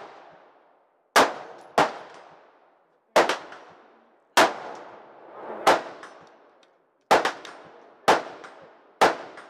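Rifle shots fired one at a time, eight in about nine seconds at an uneven pace, each followed by a long echoing tail.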